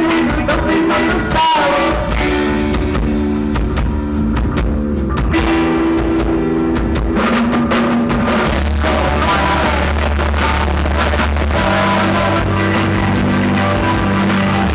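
Live rock band playing loudly: electric guitar, keyboards, bass guitar and drum kit, with long held notes and a steady bass line.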